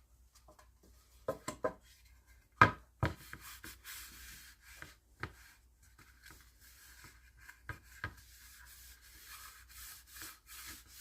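A wipe being rubbed over a sanded pine dulcimer body, checking for rough spots that would snag it, with a few sharp knocks from the wood being handled; the loudest knock comes about two and a half seconds in, and soft rubbing runs through the second half.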